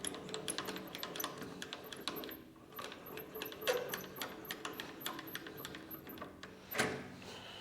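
Creworks 8x16 mini metal lathe slide being hand-cranked all the way out along its leadscrew: a quick, uneven run of small metallic clicks and ticks, with one louder clack near the end.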